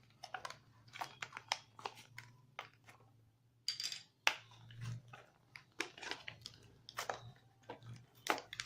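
Cardboard and plastic packaging being pried and torn open with a pencil: irregular crackles, crinkles and small clicks, with a longer tearing scrape about three and a half seconds in.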